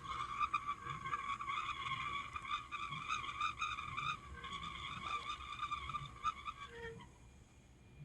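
Bearing of a Sharp air purifier's DC brushless motor (MOTA023KK, 140 V 38 W) squealing at high speed, a wavering high-pitched chirping squeal. Though it is a ball bearing, it sounds like a plain metal bearing run dry of oil: the bearing is worn. The squeal cuts off suddenly about seven seconds in.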